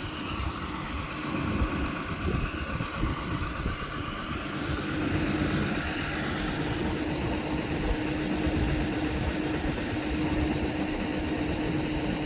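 Vehicle engine idling with a steady hum, under a gusty low rumble of wind on the microphone.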